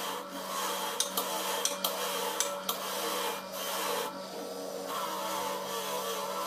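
An electric grinder's disc running with a steady hum while an alternator housing is held and rubbed against it, giving a continuous rasping scrape. A few sharp clicks come in the first half.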